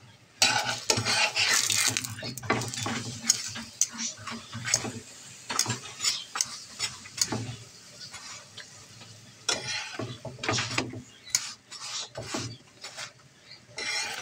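Metal spatula scraping and pressing a paratha on a flat nonstick pan in irregular strokes, with ghee sizzling under the bread. The strokes are busiest in the first couple of seconds and again from about nine seconds on.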